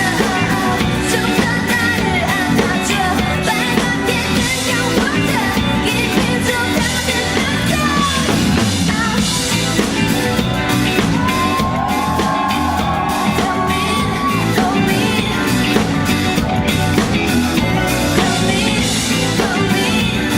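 Loud pop song with singing and yelled vocals over a full band, with one long held note about eleven seconds in.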